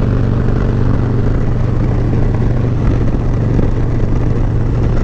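Harley-Davidson V-twin motorcycle engine running steadily at highway cruising speed, heard from the rider's own bike, with a constant rush of wind and road noise.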